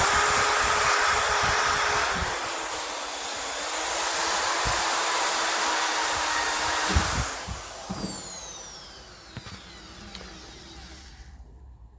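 Handheld power tool cleaning a dynamo's casing: it runs at steady speed for about seven seconds, its pitch sagging slightly a couple of seconds in, then is switched off and spins down over the next few seconds.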